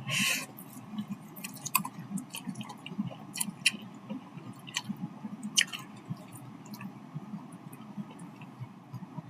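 A person chewing a mouthful of saucy instant fried noodles, with soft wet mouth sounds and scattered sharp clicks and smacks. A short breathy hiss comes right at the start.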